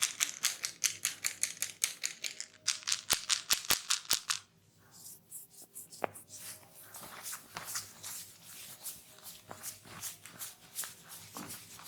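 Quick, even tapping strokes of hands on the head during a head massage, about five or six a second, stopping about four seconds in; after that, softer, uneven rubbing and patting.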